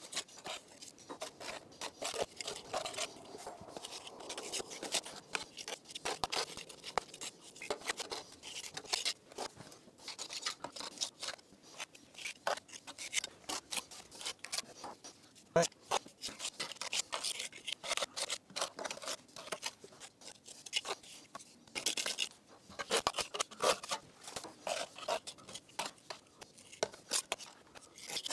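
Steel pointing trowel scraping mortar off a hawk and pressing it into the joints of an old brick wall: irregular short scrapes and clicks of metal on mortar and brick.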